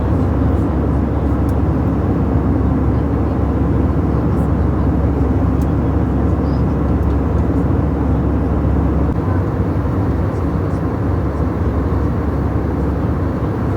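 Steady roar of an airliner's engines and rushing air heard inside the passenger cabin in flight, the deepest rumble easing about nine seconds in.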